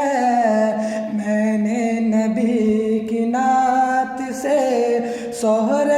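A solo voice singing a naat, an Urdu devotional song in praise of the Prophet, in long drawn-out melodic lines with no clear instruments.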